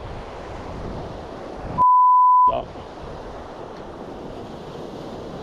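Waves washing over a rocky shore, and about two seconds in a single steady high censor beep, under a second long, that blanks out all other sound: an edited-in bleep covering a swear word.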